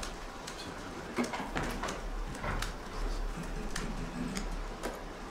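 Scattered light knocks and clicks of people handling things at a lectern and table, over a steady low hum and faint voices.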